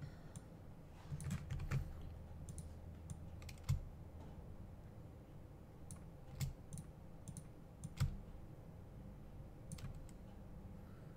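Scattered, irregular clicks of a computer mouse and keyboard, about a dozen sharp clicks with pauses of a second or more between them.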